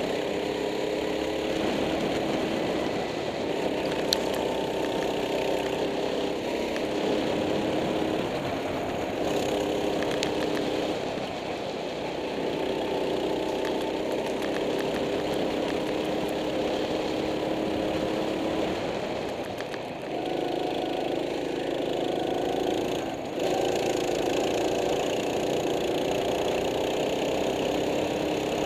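Go-kart engine running under load, heard close from on board the kart, its pitch holding and then dropping and picking up again several times as the throttle is eased for corners.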